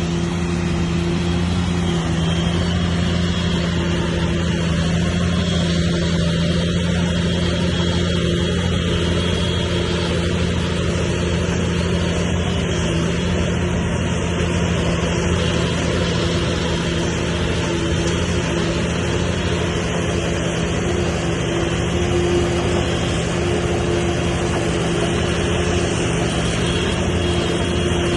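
Diesel engine of heavy earthmoving machinery running steadily at an even pitch.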